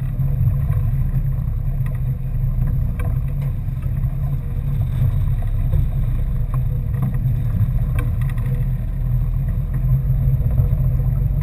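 Fishing boat's engine running steadily under way, a continuous low drone, with a few faint clicks scattered through it.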